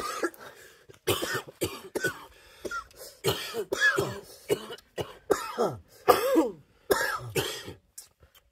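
A man coughing in a long, harsh fit of a dozen or more hacking coughs in quick succession, many trailing off in a falling, groaning voice: smoker's coughing after drawing on a pipe.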